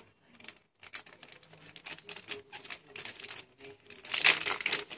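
Plastic packaging bag crinkling and crackling in irregular clicks as hands pull it open, faint at first and much louder and denser about four seconds in.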